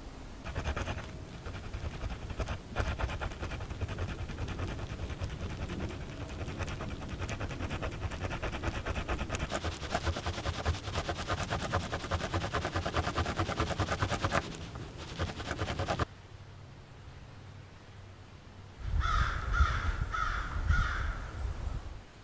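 Stone tool scraping a wooden shaft, a fast, steady rasping of many short strokes that stops suddenly about sixteen seconds in. Near the end a crow caws about four times.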